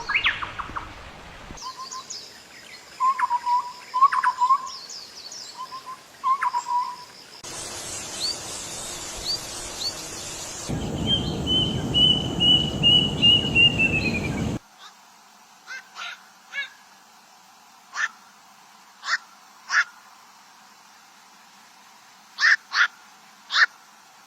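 Calls of several different birds played one after another, with abrupt cuts between recordings. First come repeated short whistled calls, then a quick run of notes that falls slightly in pitch at the end, and finally short sharp calls at irregular intervals over a quiet background.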